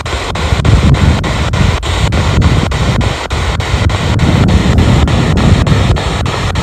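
Spirit box sweeping through radio frequencies: a steady rush of radio static broken by regular clicks, about four a second, as it jumps from station to station.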